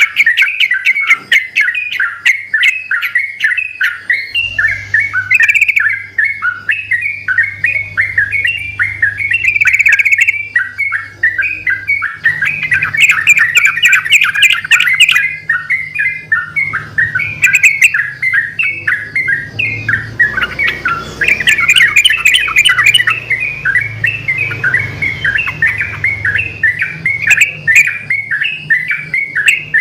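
Yellow-vented bulbuls (trucukan) singing a continuous stream of quick bubbling, chattering notes, several birds answering one another without a break.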